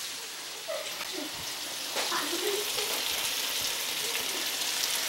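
Hot oil sizzling steadily as breaded wild turkey pieces deep-fry in a skillet, the hiss growing a little louder about two seconds in.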